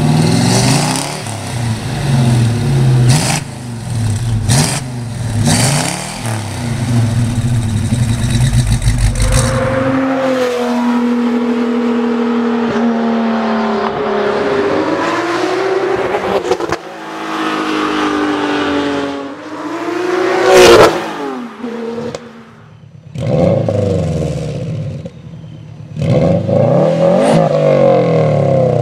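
A 1956 Ford F100's 390 FE V8, with truck manifolds and FlowTech Afterburner mufflers, revving in repeated blips for about ten seconds. Then a Porsche 911 996 Turbo's twin-turbo flat-six accelerates and passes by, loudest about twenty seconds in. Near the end a 2004 Subaru Forester XT with a Cobb catback exhaust revs up and down.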